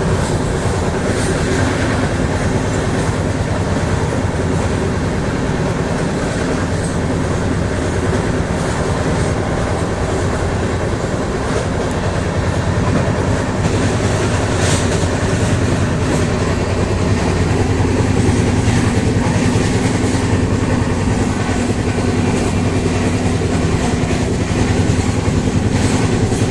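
Steady loud mechanical rumble with a low droning hum, growing a little louder in the second half: a vehicle running.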